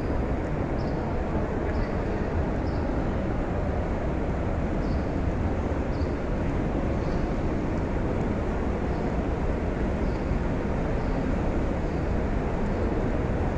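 Steady ambient noise of a large crowd of pilgrims walking, a constant dense rumble with no single voice standing out.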